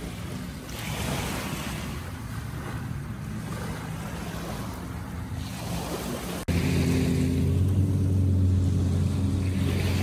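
Small waves washing onto a sandy beach, swelling and fading every few seconds, with wind on the microphone. About six and a half seconds in there is a sudden break, and after it a louder steady low motor hum sits under the surf.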